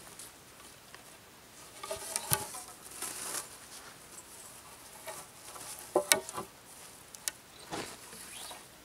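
Cordage being pulled and wrapped around the ends of debarked wooden poles, with rustling of the cord and the dry ground litter. Short scraping rubs and sharp clicks of wood come through it, the loudest a little after two seconds and just after six seconds.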